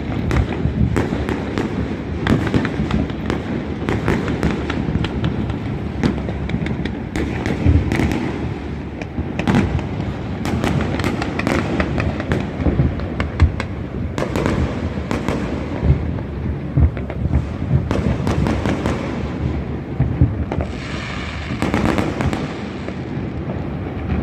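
Many fireworks going off across a city at once: a continuous low rumble of overlapping booms, shot through with sharp cracks and pops. Near the end, a couple of seconds of higher, hissing crackle stands out.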